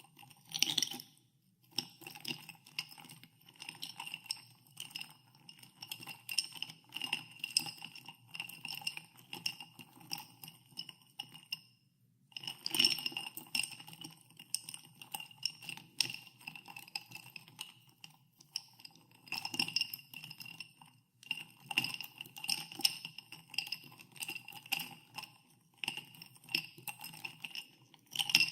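Ice cubes stirred in a glass of soda water, clinking against the glass continually with a bright ringing tone, pausing briefly a few times.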